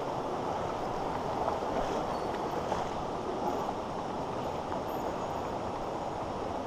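Shallow, rocky mountain stream flowing over stones and gravel: a steady rushing of water.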